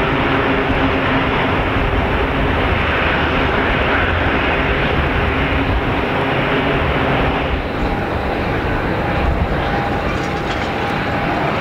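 Lockheed C-130 Hercules four-engine turboprop taxiing: a steady propeller drone. About seven and a half seconds in, it gives way to a slightly quieter, steady airport hum with a thin high whine.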